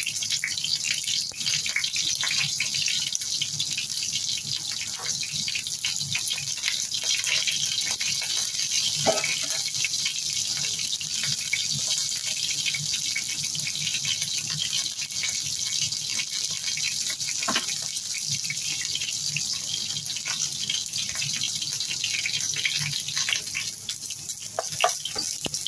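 Carrot chunks and pieces of chicken fat frying in hot oil in a non-stick wok: a steady sizzle with scattered sharper crackles.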